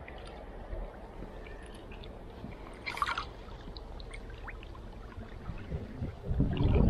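Faint river water with a brief splash about three seconds in, then a low rumbling on the microphone near the end.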